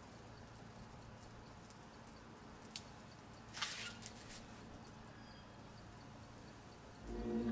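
Quiet outdoor background hiss with a few faint clicks and a short rustle around the middle; music starts to come in near the end.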